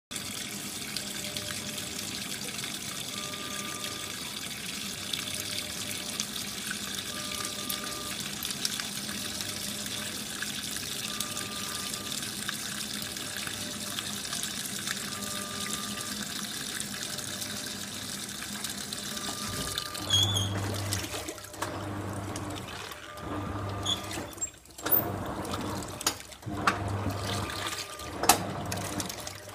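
1989 Sanyo coin-operated compact washing machine in its rinse cycle: water running steadily into the tub, then about twenty seconds in the motor starts, humming in short on-off pulses with water sloshing and a few knocks.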